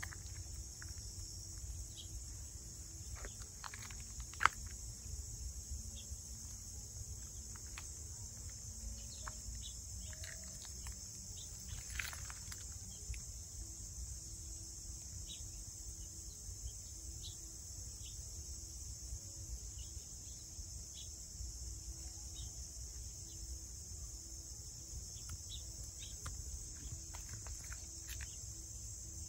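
A steady, high insect chorus, dotted with many short, high chirps, over a low rumble. One sharp click about four seconds in.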